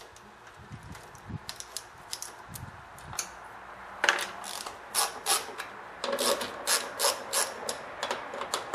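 Ratchet wrench clicking in quick strokes, about three or four clicks a second from about four seconds in, as a socket turns out a shroud bolt on a Kohler Command engine. Before that there are only faint light metal ticks.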